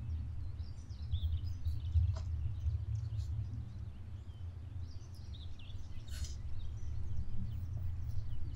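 A kitchen knife slicing through crisp-fried beef brains on a bamboo plate, with a soft crunch about six seconds in and a small click about two seconds in. Under it runs a steady low outdoor rumble with faint birds chirping.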